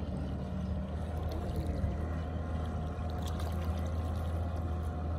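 Motorboat's outboard engine running steadily across the lake, a low, even drone, with a few faint light clicks.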